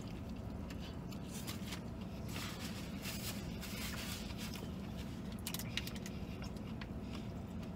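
A man chewing a mouthful of spicy chicken sandwich and blowing out a few short breaths against the heat, with small crackles of paper napkin and wrapper. A steady low hum runs underneath.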